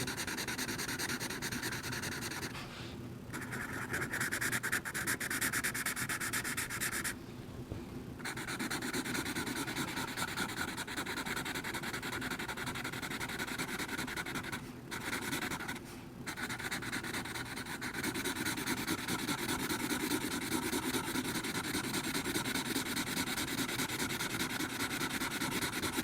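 Sharpie marker rubbing back and forth on drawing-pad paper as an area is coloured in, a continuous scratchy scribbling broken by a few brief pauses.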